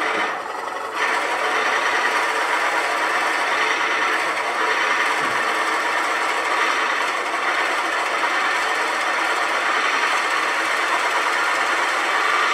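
A Forstner bit boring into a spinning wood blank on a wood lathe, fed in from the tailstock quill: a steady cutting noise that eases off briefly just after the start, then carries on evenly.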